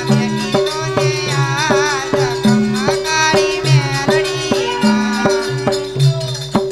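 Gujarati devotional folk music: a steady percussion beat and bass notes under a held drone, with a wavering, ornamented melody line above.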